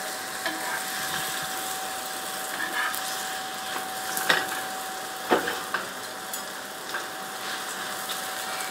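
Paratha frying in ghee on a flat griddle, a steady sizzle, with a few short scrapes and taps of a metal spatula on the griddle about four and five seconds in as the paratha is pressed and moved around so it cooks evenly.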